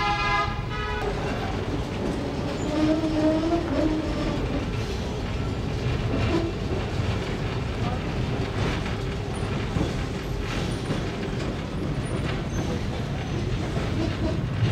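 Old electric tram running slowly along street rails: a steady low rumble with the clatter of its steel wheels on the track. A horn honks for about a second at the very start.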